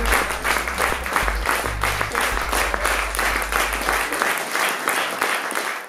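Audience clapping in sustained applause, with low music underneath that fades out about four seconds in.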